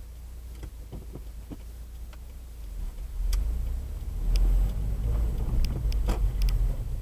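A car driving with a steady low rumble, and irregular clunks and knocks over it, sparse at first and then more frequent, the loudest about six seconds in.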